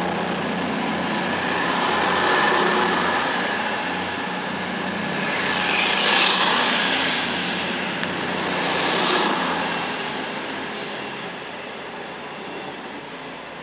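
Class 221 Super Voyager diesel-electric train passing along the platform, its underfloor diesel engines and wheels swelling and easing as each car goes by. It is loudest about six and nine seconds in, then fades as the rear of the train draws away.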